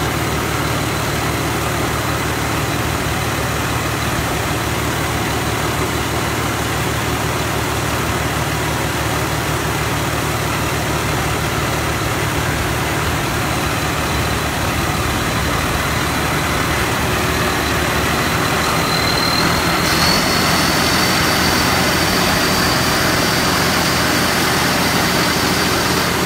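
Combine harvester engine running steadily under a constant hum. A faint high whine steps up slightly in pitch about three-quarters of the way through and holds, as the sound grows a little louder.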